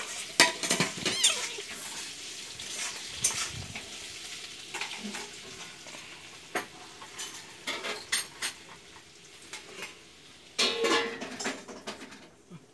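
Two kittens play-fighting on a lap: soft rustling of fur against cloth and denim, with irregular small clicks and scratches, and a louder scuffle about eleven seconds in.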